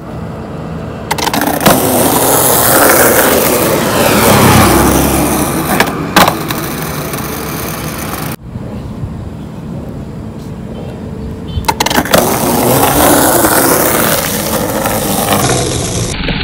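Skateboard wheels rolling on rough concrete, with a few sharp clacks of the board hitting the ground. The sound cuts abruptly to quieter rolling for a few seconds in the middle.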